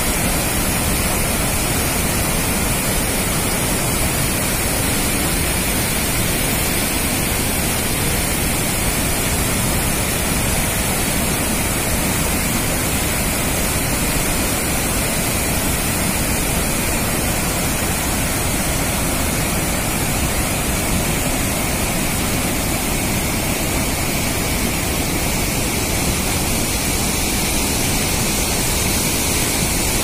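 Waterfall in spate, a heavy flow of water crashing over rocks with a steady, loud rush.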